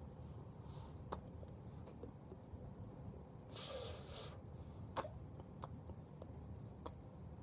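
Low room hum with scattered soft clicks of hands meeting as a man signs, and one short breathy puff of air about three and a half seconds in.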